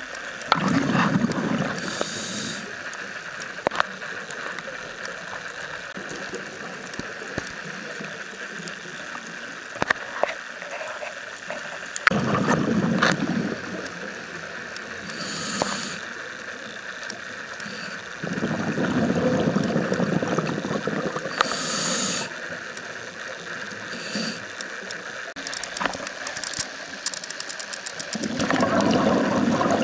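Scuba diver breathing through a regulator underwater: four long bubbling rushes of exhaled bubbles, with short hissing inhalations between them, over a steady underwater hiss with scattered clicks.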